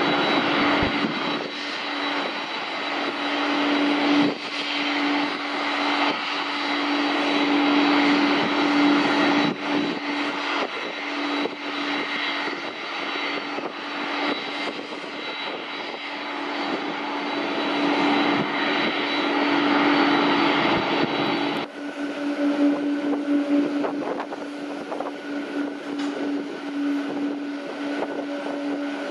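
Jet engines of a Boeing 777-200 airliner running at taxi power: a continuous whining drone with a steady hum tone that swells and eases as the aircraft moves. About two-thirds of the way through, the sound changes abruptly as the view cuts to the same plane further off.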